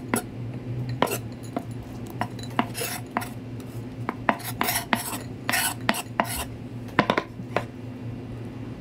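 Chef's knife knocking and scraping on a wooden cutting board: irregular sharp taps as it cuts, and several longer scrapes as the blade sweeps chopped tomato, onion and parsley across the board. A steady low hum runs underneath.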